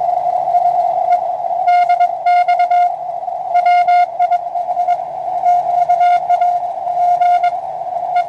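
Morse code (CW) tone from a homebuilt, customised Small Wonder Labs SW20 20 m transceiver: a single pitch of about 700 Hz keyed on and off in quick dots and dashes over steady receiver hiss.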